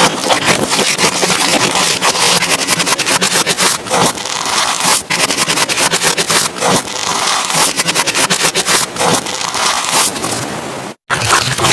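Slime being pressed and worked close to the microphone, giving a dense run of crackling, popping clicks. The sound breaks off in a brief silent gap near the end.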